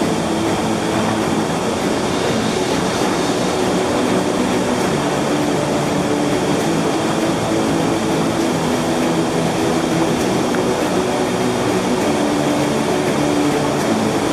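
Steady rushing roar of Sandstone Falls, the wide ledge cascades of the New River, with no breaks.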